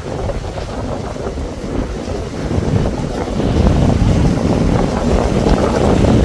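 Wind buffeting the microphone: a loud, low, rushing noise that grows stronger a little past halfway.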